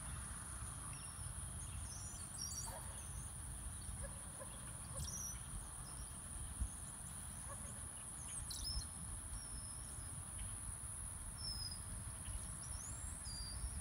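Outdoor pasture ambience: a steady high-pitched insect drone, with short bird chirps every few seconds over a low rumble.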